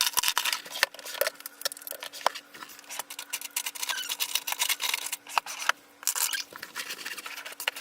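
Small clicks, taps and rustles of makeup items being handled and rummaged through, as in a search for eyelash glue.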